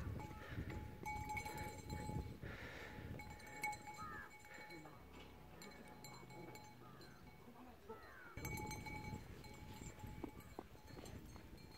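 Faint open-air ambience with a few short, distant animal calls and scattered low thuds.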